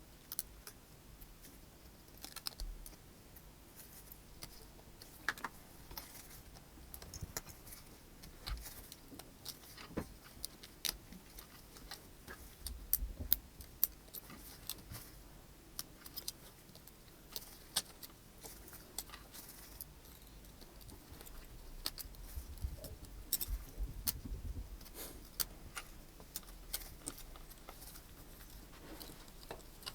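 Small hand tools clicking and tapping against a smartphone's parts as it is taken apart, in scattered light clicks with a few louder taps and low knocks.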